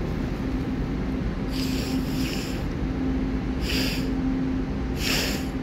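Underground railway platform ambience: a steady low hum with a faint steady tone in it, broken by three short hissing puffs about one and a half, three and a half and five seconds in.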